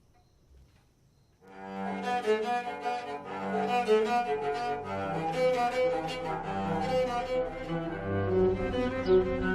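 A home-made cello with an oil-can body, scrap-wood neck and pegs cut from old kitchen utensils, bowed and playing a sustained melody that starts about a second and a half in.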